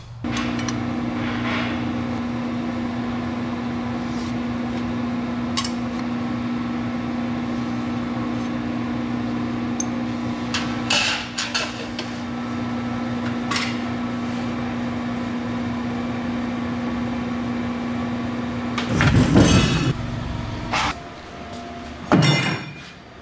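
Large power metal shear running: its motor gives a steady hum, with a few light metal clicks, and a loud bang near the end as the blade comes down through steel plate.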